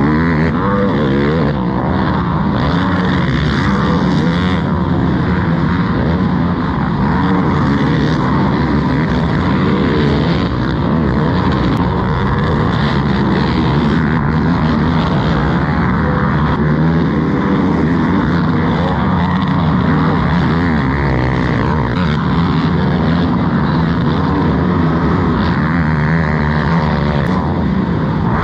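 Racing quad engines, Yamaha YFZ450R single-cylinder four-strokes, revving hard with the pitch rising and falling as they accelerate, shift and back off, several running at once.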